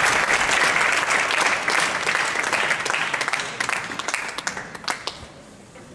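Audience applauding, the clapping thinning out and dying away to a few scattered claps near the end.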